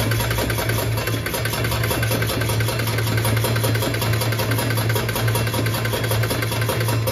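Coin-counting change machine running, its motor humming steadily under a rapid, even clatter of coins being counted.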